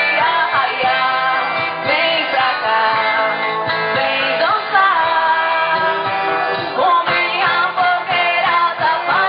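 Music with a steady beat and a melody that slides in pitch.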